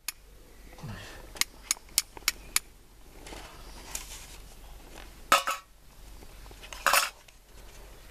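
Five quick light metallic clicks, then two short harsh scrapes of a steel striker drawn down a ferrocerium rod over a tinder bundle to throw sparks. The scrapes are the loudest sounds.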